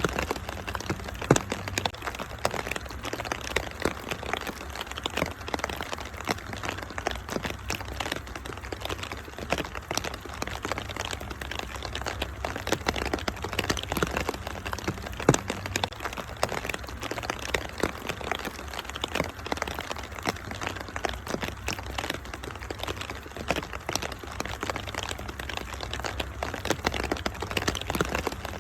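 Wood fire crackling with frequent irregular sharp pops, over a steady hiss of rain and a low steady rumble.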